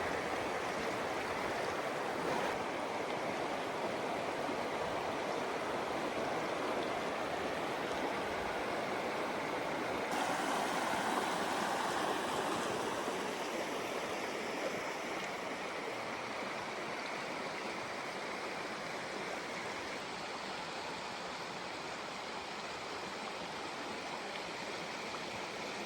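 Steady rush of flowing water from a spring-fed stream. The sound changes abruptly about two and a half and ten seconds in.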